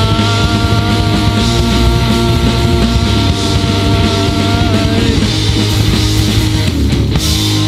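Live rock band playing at full volume: distorted electric guitar, bass guitar and drums, taken straight from the mixing desk in mono. A long high note is held for about five seconds over steady drumming, and the song shifts near the end.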